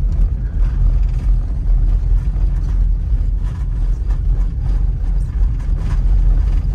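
Cabin noise of a Toyota 4x4 driving on a frozen, packed-snow forest road: a steady low rumble of engine and tyres, with scattered light clicks and creaks from the vehicle.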